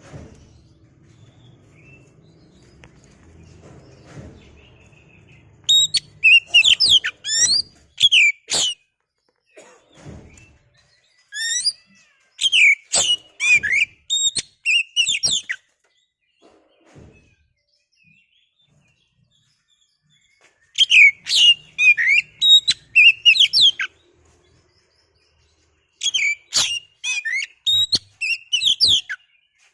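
Oriental magpie-robin (kacer) singing in four bursts of fast, sharp whistled notes mixed with clicks, with quiet pauses between the bursts. This is the loud song used to provoke another kacer into singing.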